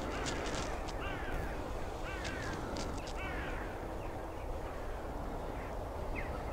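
A crow cawing: about four short calls that rise and fall in pitch in the first few seconds, then fainter calls later, over steady low background noise.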